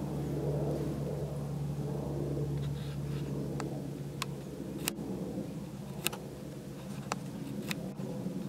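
Steady low engine hum, with six sharp clicks scattered through the second half.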